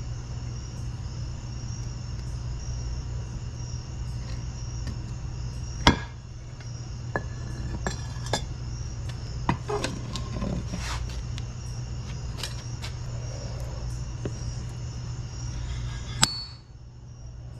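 Metal ingot mold and freshly cast copper ingot knocked out onto a stone slab: one sharp clank about six seconds in, then several lighter metal clinks and taps, and another sharp clank near the end, over a steady low hum.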